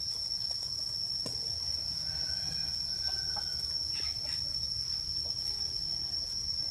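A cricket trilling steadily on one continuous high note, over a low rumbling background.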